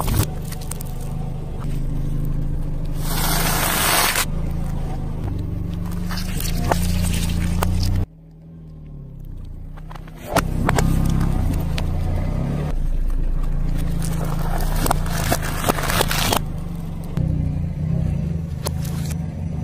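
A car tyre rolling slowly over small objects on asphalt, crushing drink cartons and other soft and crunchy items with crackling, scraping and popping, over the steady low hum of the car's engine. The sound drops away briefly near the middle, then the crushing resumes.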